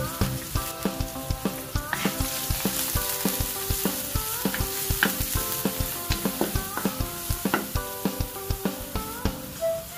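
Sauce sizzling and frying in a metal wok while a spatula stirs it, with frequent irregular clicks and knocks of the utensil against the pan.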